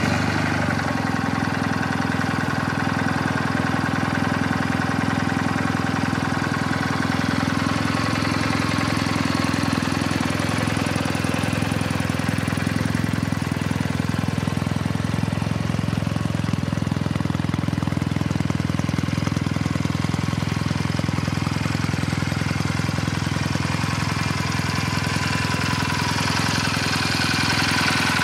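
Kawasaki W800's 773 cc air-cooled parallel-twin engine idling steadily.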